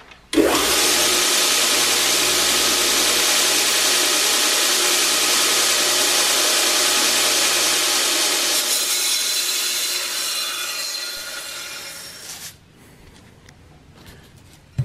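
A homemade 2x72-inch belt grinder sands the steel blade of an old meat cleaver, making a loud, steady grinding hiss over the low hum of its motor. It starts suddenly and fades out about twelve seconds in.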